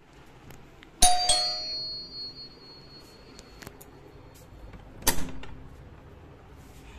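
An electric doorbell rings once about a second in: a bright chime whose high tones fade over a second or two, signalling someone at the front door. A short, lower thump follows about five seconds in.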